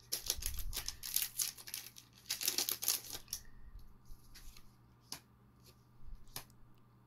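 Foil Magic: The Gathering booster pack wrapper being torn open and crinkled, in two spells over the first three seconds or so. This is followed by a few soft clicks of cards being leafed through.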